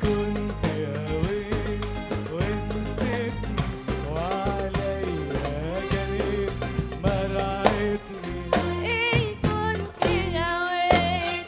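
Music from an Arabic song: a wavering melody line over percussion and a steady low accompaniment.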